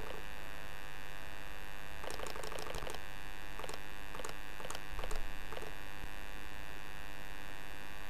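Steady electrical mains hum with mouse clicks over it: a quick run of clicks about two seconds in, then single clicks every half second or so until about halfway through, as the gradient angle spinner is stepped up.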